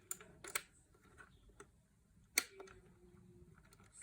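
Sparse single clicks from a mechanical keyboard with clicky Cherry MX Blue-type switches, about five keys pressed one at a time. The loudest press comes about two and a half seconds in, with a brief ring after it.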